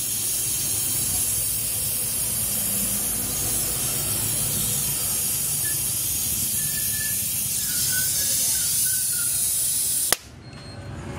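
Gas brazing torch flame hissing steadily while brazing a copper tube onto a refrigerator compressor's stub. About ten seconds in, the flame is shut off with a sharp click and the hiss stops suddenly.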